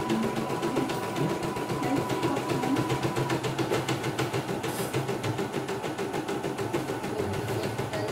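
CNY E900 computerized embroidery machine stitching out a test design, its needle running in a rapid, even rhythm as the embroidery unit moves the hoop. It is partway through the first thread colour.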